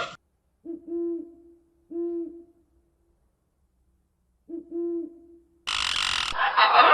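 Three hooting calls, each a single steady low note held for about half a second, the first two about a second apart and the third after a pause of two and a half seconds. Near the end a loud, rough, noisy sound cuts in suddenly.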